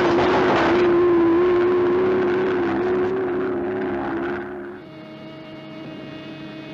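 Cartoon sound effect of a giant robot's mechanical whirring drone, a steady, slightly wavering tone, as it runs off and flies away, over the last of some breaking glass in the first second. About four and a half seconds in it cuts to the steady electrical hum of a machine control panel.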